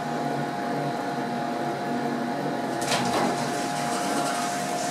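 Otis hydraulic elevator car: a steady mechanical hum with a held whine, then a clunk about three seconds in as the sliding car door starts to open, followed by the rattling run of the door.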